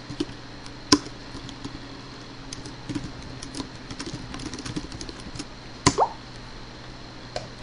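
Typing on a computer keyboard: a run of quick, irregular key clicks in the middle, with a single sharp click about a second in and a louder short knock near six seconds.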